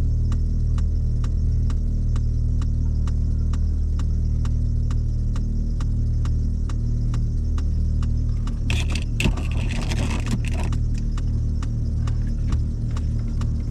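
A motor running steadily with a low hum, with a light regular ticking about two or three times a second. A short rustling noise comes about nine to ten seconds in.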